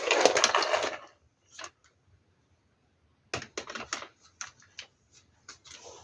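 Plastic parts of a cordless stick vacuum being handled and fitted together by hand: a rough scrape in the first second, then scattered plastic clicks and rattles, with a quick cluster of them just past the middle.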